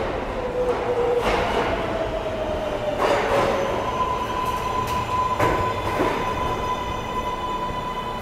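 R143 subway train pulling into the station and slowing alongside the platform, its running rumble topped by a pitched whine that changes to a steadier, higher tone about three seconds in, with a few sharp clacks from the wheels.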